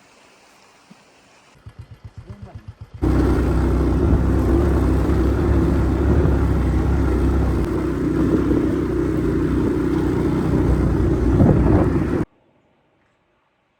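A small engine sputters with a quick run of rapid pulses, then runs loud and steady for about nine seconds before cutting off suddenly.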